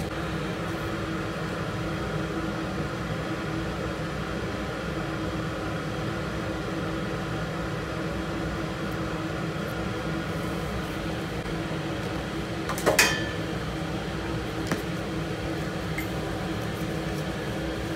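Steady machine hum with a few constant tones, like a running fan or motor, and a short sharp clatter about thirteen seconds in.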